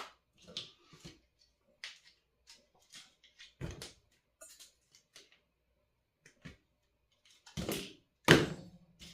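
Small clicks and knocks of soldering tools being handled while solder is removed from a circuit board, with two louder knocks near the end.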